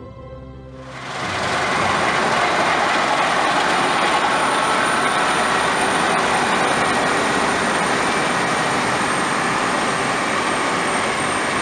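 Combine harvester at work in the field, giving a loud, steady mechanical rushing noise with a faint high whine. It cuts in abruptly about a second in and runs evenly until it cuts off abruptly.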